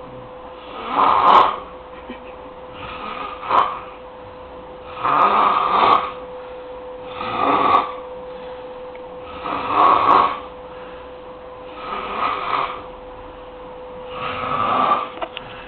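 A sleeper snoring in a steady rhythm, one snore every two seconds or so, seven in all. A faint steady hum runs underneath.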